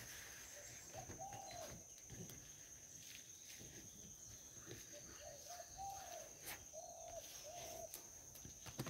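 Faint bird calls, short rising-and-falling coos: one about a second in, then four more between about five and eight seconds, over a steady high-pitched insect drone.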